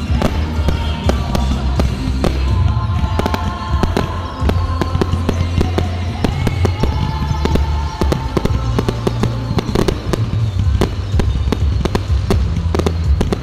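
Aerial fireworks bursting in quick succession, many sharp bangs and crackles a second, over loud music with a heavy bass.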